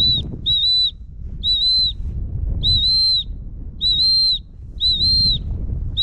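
A dog whistle blown in a series of short, steady high-pitched blasts, about one a second, to recall a dog. Wind rumbles on the microphone underneath.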